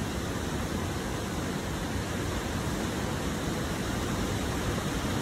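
Steady rushing of a creek's water, even and unbroken.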